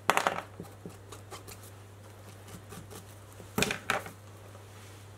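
Felt-tip permanent marker dabbing and scratching on the plastidip-coated mylar sleeving of a fly's tail: a quick cluster of taps at the start and a few faint ticks after, then a louder double knock a little past halfway as things are set down on the bench.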